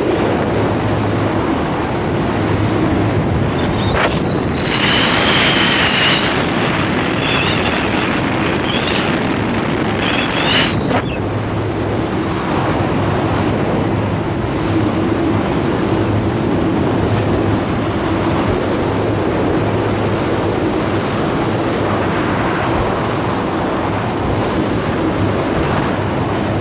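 Powerboat underway at speed: the engine drones steadily under wind buffeting the microphone and the rush of the wake. Brief higher-pitched sounds break in twice, about five seconds in and again near eleven seconds.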